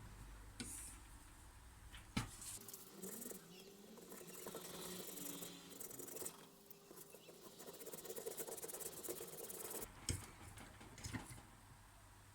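Sandpaper rubbed by hand over a steel wrench: a faint, scratchy rubbing for several seconds. A few sharp clicks come about two seconds in and again near the end.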